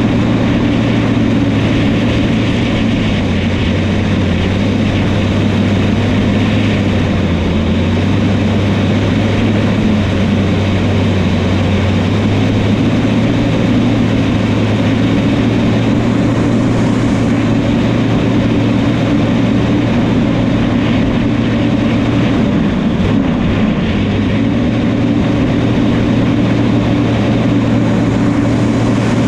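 Diesel engine of a New Holland crawler bulldozer running steadily while the machine works, with a constant low hum.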